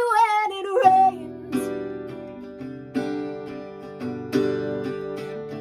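A sung note trails off about a second in. Then slow strummed acoustic guitar chords begin, one roughly every second or so, each left to ring out: the opening of a song.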